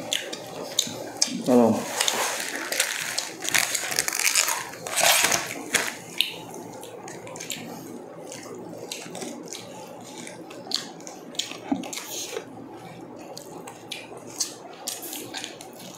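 Close-up eating and food-handling sounds: dense crisp rustling and crackling for the first few seconds, then scattered small sharp crackles and clicks of crunching, plastic wrap and a sauce sachet being handled.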